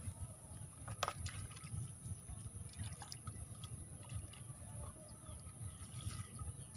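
Faint water splashing and dripping, with a few light knocks (the clearest about a second in), over a low rumble.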